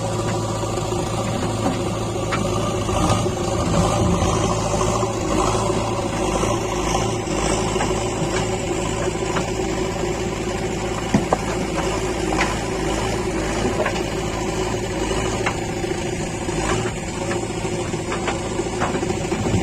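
JCB 3DX backhoe loader's diesel engine running steadily, with a few short sharp knocks over it, the loudest about eleven seconds in.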